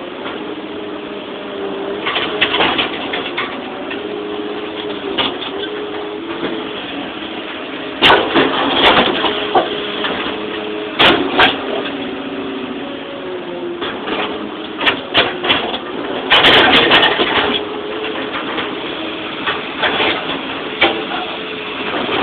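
Excavator's diesel engine and hydraulics running, the pitch shifting in steps as the boom and bucket are worked. Loud clunks and rattling of the steel bucket and rocks come several times: about a third of the way in, near halfway and for about a second three quarters of the way through.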